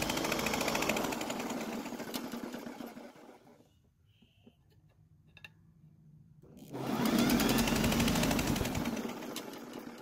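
Honda mower engine spun over twice with its spark plug out in a spark tester. Each run lasts about four seconds, speeds up at the start and then fades, with a short gap of faint ticks between the two. The aftermarket plug in the tester is sparking on the side of the electrode, not at the tip, so the plug is faulty.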